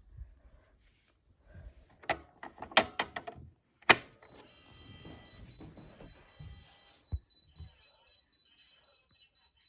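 A run of sharp clicks and knocks, the loudest about four seconds in, then a fire alarm sounder starts: a high steady tone with rapid beeping that settles, about eight seconds in, into even pulses at roughly two and a half a second, signalling that the fire alarm has been triggered.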